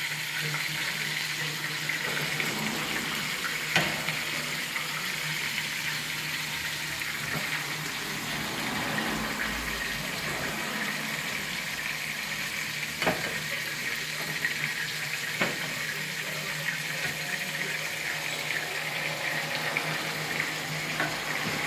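Food sizzling steadily in a frying pan on the stove, over a low steady hum. A metal spoon clinks sharply against the pans three times, about four seconds in and twice more past the middle.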